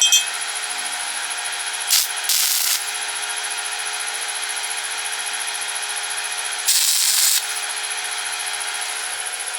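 Electric welding arc sizzling and crackling steadily under a constant high-pitched whine, with two short louder bursts of hiss about two seconds and seven seconds in.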